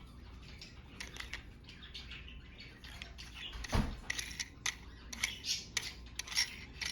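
Plastic car phone holder and its packaging being handled: scattered clicks and rustling, with a dull thump about four seconds in.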